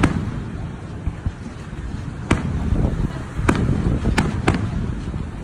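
Aerial firework shells bursting: four sharp bangs, one about two seconds in, one a second later, then two close together, over a steady low rumble.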